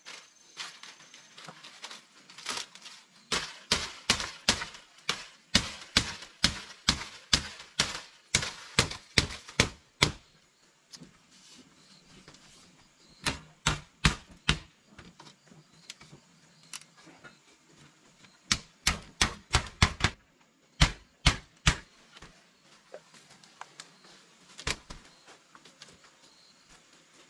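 Repeated sharp knocks in quick runs of about three a second, stopping and starting several times with short pauses between runs.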